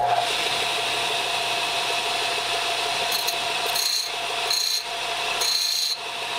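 Bench disc sander with a 120-grit disc running steadily, its motor giving a constant hum. From about three seconds in, the end of a steel piston ring is touched to the disc four times in short grinding contacts, the last one longest, taking metal off the ring end to widen the ring gap toward 17 thousandths.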